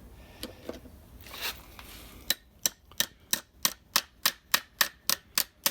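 Small hammer tapping rapidly and evenly on brass rivets, about three light metallic taps a second starting a little over two seconds in, to spread and set the rivets holding wooden liners on a Model T Ford transmission band.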